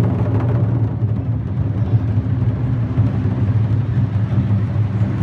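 Several taiko drums played in a fast roll, the strokes running together into a steady, loud, low rumble.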